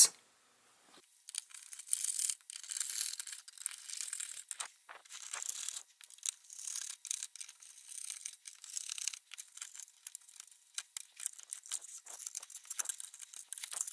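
Screwdriver backing out screws and small parts being handled against a sheet-metal instrument case: an irregular run of light scratchy scraping and small clicks, starting about a second in.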